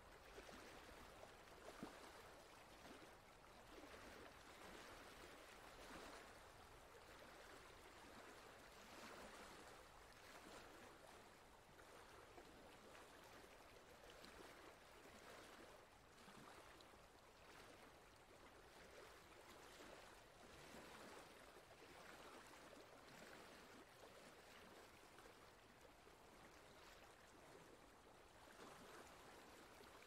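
Forest stream running over rocks: a faint, steady rush of flowing water with gentle swells.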